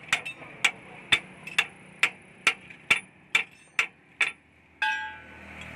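Hand hammer striking the steel bolt hardware of a ten-wheeler truck's front leaf-spring mount: about ten sharp metallic knocks, roughly two a second. Near the end comes one ringing metal clang.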